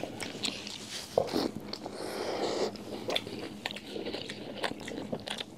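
People biting into and chewing mouthfuls of a homemade burger, with many short wet mouth clicks and smacks.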